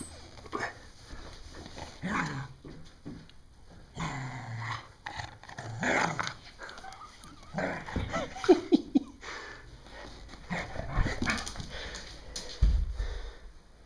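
Irish Terrier growling in irregular bursts while playfully guarding a stick, worked up and rambunctious. A cluster of sharp, loud short sounds comes a little past halfway.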